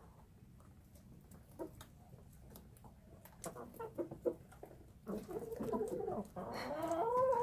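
Flock of laying hens feeding on shredded carrots: light pecking taps at first, then clucking from about three and a half seconds in that grows louder, ending in a drawn-out call rising in pitch.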